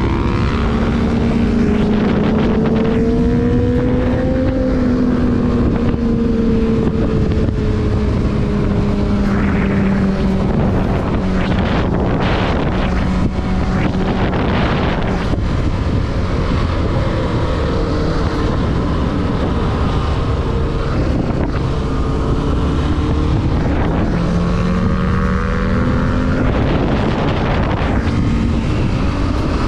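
Sport motorcycle engine running under way, its pitch rising over the first few seconds, easing slowly down, and climbing again near the end as the throttle changes. Heavy wind noise on the microphone runs under the engine.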